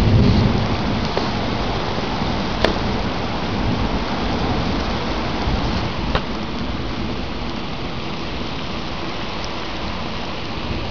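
Heavy rain pouring steadily onto pavement and a shingled roof, with a few sharp drip ticks. There is a brief low rumble right at the start.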